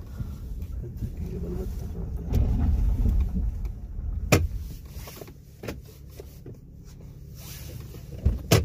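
Honda Ridgeline pickup creeping along a rough, rutted dirt track, heard from inside the cab as a low rumble, with a sharp knock about four seconds in and two more near the end.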